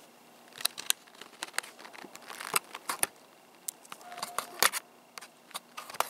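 Small folding knife blade of a multi-tool cutting through a clear plastic blister pack, the stiff plastic giving a run of irregular sharp crackles and clicks.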